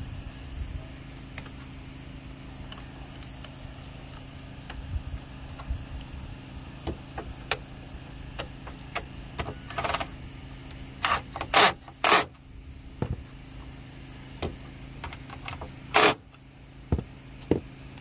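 Hands working the wiring inside an opened Dometic Penguin rooftop RV air conditioner: small clicks and handling noises over a steady low hum. Three short, loud noises come about two-thirds of the way through, and one more a few seconds later.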